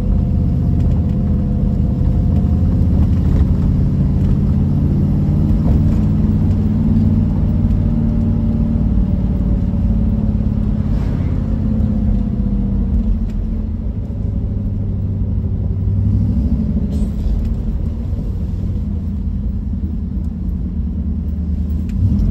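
Triumph Stag's 3.0-litre V8 engine running as the car drives at low speed, heard from inside the car as a steady low rumble. The note settles lower after about sixteen seconds as the car slows toward a stop.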